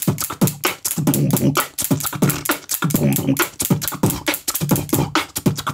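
Quick rhythmic clicking of the flicker on a Weber Workshops EG1 grinder's chute, which is flicked to vibrate loose grounds out of the chute, played in a beat with a man beatboxing along.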